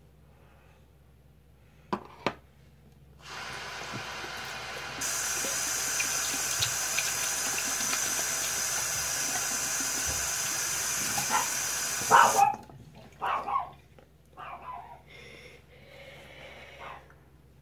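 Two short clicks, then a bathroom sink tap running in a steady rush. It is turned on about three seconds in, opened wider about two seconds later, and shut off with a knock about twelve seconds in.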